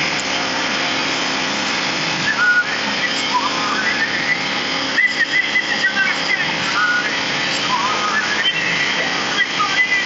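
Cleereman sawmill running with a steady noise, with short high chirps and whistles coming over it every second or so.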